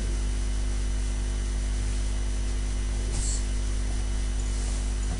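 Steady electrical mains hum with background hiss on the recording, with a brief high hiss, like a rustle, about three seconds in.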